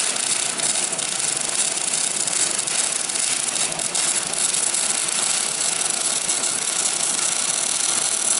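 MIG welder arc crackling and sizzling steadily as a continuous bead is run on steel.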